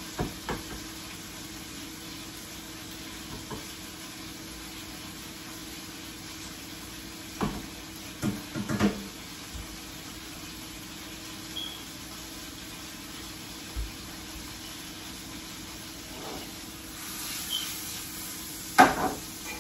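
Shrimp frying in a pan on a gas stove with a faint steady sizzle over a low hum, broken by scattered knocks and clatters of pans and utensils. Near the end the sizzle swells briefly and the loudest clatter comes as the pan is worked.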